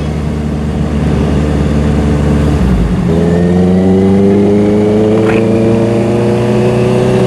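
Honda CBR650R's inline-four engine running under way. The engine note changes about three seconds in, then climbs steadily as the bike accelerates.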